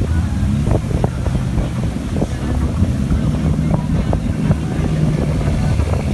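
Motorboat engine running steadily at speed, with water rushing past the hull and wind buffeting the microphone.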